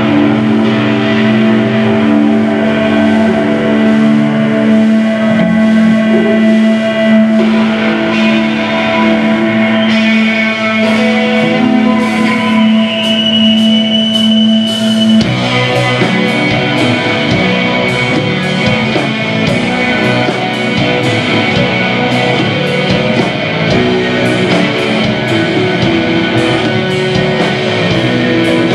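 Postpunk band playing live with electric guitars, bass and drums and no vocals. For the first half the guitars hold a long droning chord. About halfway in the band shifts into a busier part driven by a steady drum beat.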